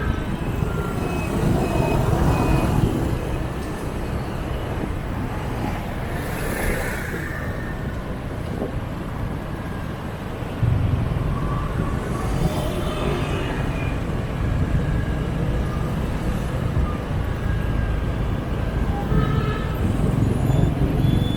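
Motorbike traffic heard from a scooter riding through city streets: a steady mix of engines and road noise that gets louder about ten seconds in.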